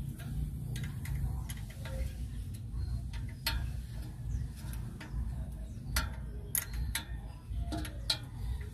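Irregular metallic clicks and clinks of an open-end wrench working a bolt on a truck's drum-brake shoe assembly, a dozen or so sharp ticks at uneven intervals over a steady low rumble.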